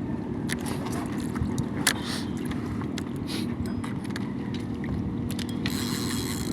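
Boat engine running steadily with a low hum. Scattered clicks and knocks sound over it, and there is a short burst of hiss near the end.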